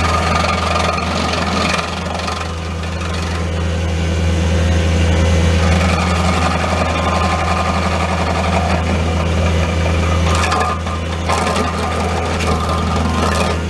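Bobcat T630 track loader's diesel engine running steadily under the SG60 stump grinder attachment, a strong constant drone, with a few sharp knocks near the end.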